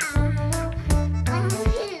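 Upbeat children's background music with a steady beat and held bass notes.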